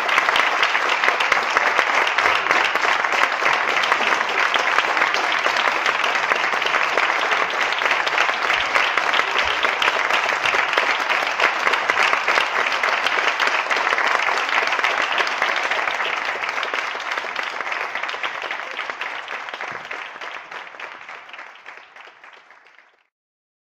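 Audience applauding steadily, then fading out over the last several seconds and stopping just before the end.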